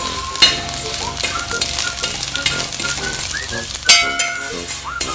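Vermicelli sizzling in ghee while a steel ladle stirs and scrapes it around a wide metal uruli pan, with repeated scraping strokes. The vermicelli is being roasted in the ghee until it turns golden.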